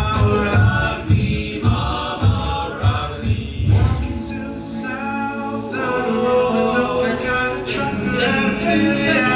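Men's a cappella group singing in close harmony, with a vocal-percussion beat of low thumps about twice a second. About four seconds in the beat drops out and the voices hold sustained chords that grow louder toward the end.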